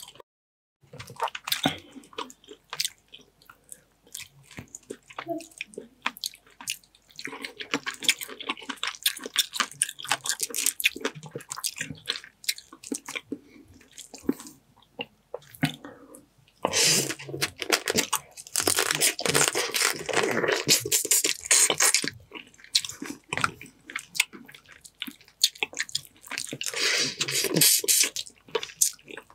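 Close-miked eating of a sauce-coated seafood boil: wet chewing, slurping and sucking on crab meat and shells, with crunches from crab shell. It comes in spells with short pauses in between.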